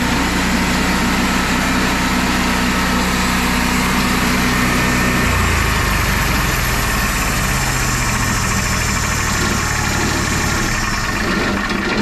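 Engine of a hydraulic portable sawmill running steady with its hydraulic pump, the engine note changing about five seconds in.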